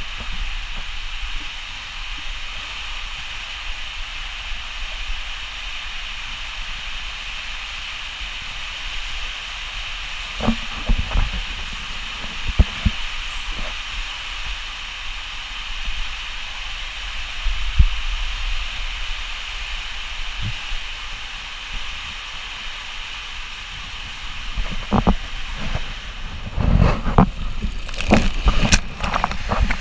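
Water rushing through an enclosed water-slide tube as a rider slides down it feet first: a steady hiss with a few scattered thumps. Near the end comes a cluster of loud splashes as the rider shoots out into the open runout.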